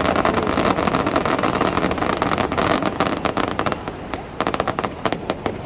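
Fireworks crackling: a dense, continuous run of rapid pops and sharp cracks that thins out a little past the middle, then picks up again.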